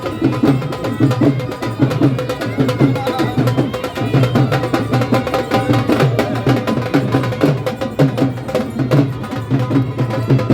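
Music with a fast, steady percussion beat of sharp clicks over a drum.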